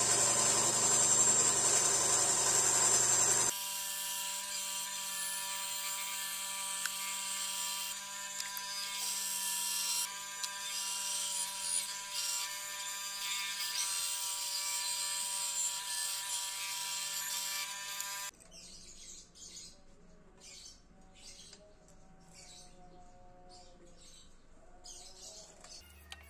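Small benchtop bandsaw running and cutting a piece of wood: a steady motor hum with the hiss of the blade, loudest in the first few seconds. It cuts off suddenly about two-thirds of the way through, giving way to quieter short scraping strokes, about two a second.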